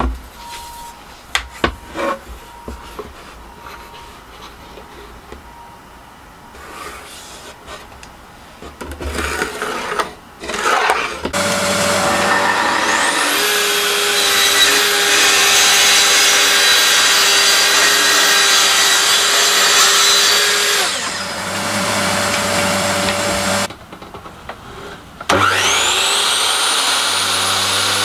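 A few light handling knocks, then a dust extractor starts and a track saw's motor whines up to speed, cuts through plywood for about seven seconds and winds down, the extractor running on briefly after. Near the end a mitre saw's motor spins up with a rising whine.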